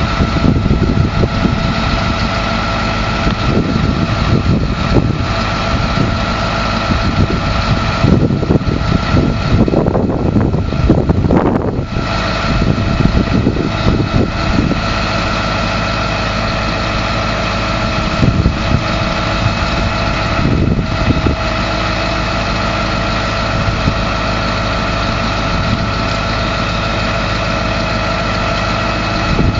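Detroit 8.2-litre V8 diesel engine of a GMC TopKick truck idling steadily. Irregular knocks and rustles sound over it through the first half, and twice more briefly later.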